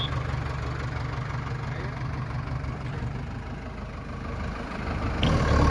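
Diesel engine of a JCB 3DX backhoe loader running steadily at idle, then picking up revs and getting louder about five seconds in.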